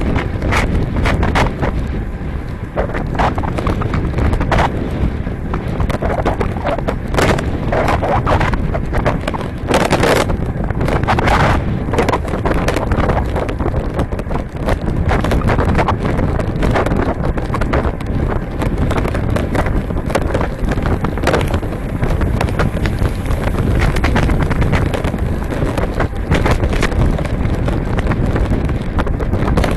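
Wind buffeting the microphone of a Garmin VIRB 360 camera riding on a road bike at speed, under a dense run of irregular clicks and knocks from the camera mount and bike rattling over the road.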